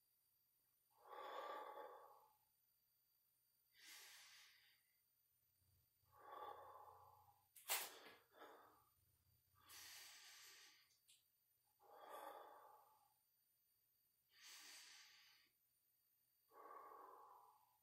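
A man breathing hard under the strain of holding a plank, one audible breath every two to three seconds, with near silence between. One sharp knock about eight seconds in.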